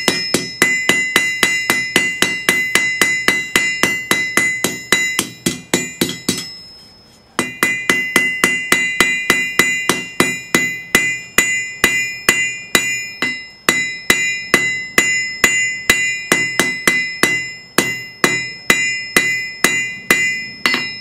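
Hand hammer striking hot steel on an anvil while rounding down the end of a hot punch: steady, quick blows about three or four a second, the anvil ringing after each. About six seconds in the hammering stops for about a second, then resumes at the same pace.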